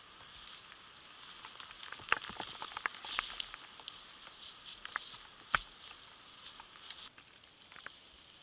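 Wet snow pattering close to the microphone: a steady hiss with many small ticks, and a few sharp clicks about two and five and a half seconds in.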